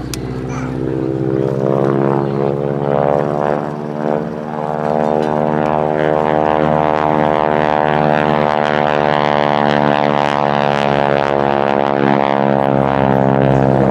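North American Harvard's Pratt & Whitney R-1340 Wasp radial engine and propeller at display power: a loud, steady drone made of many even tones, its pitch dropping slightly near the end as the aircraft passes.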